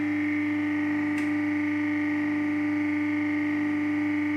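Hydraulic injection moulding machine running, a steady hum-and-whine from its hydraulic pump motor, with one light click about a second in.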